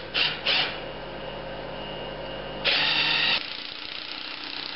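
Cordless drill driving a deck screw into the wooden window framing: two short bursts just after the start, then a longer, louder run of under a second about three seconds in.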